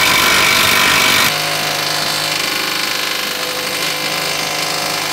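Cordless impact driver hammering as it runs a bolt up into a steel mounting plate under a van, loud for about the first second. It then gives way to a steadier, quieter mechanical whine with a low hum that holds to the end.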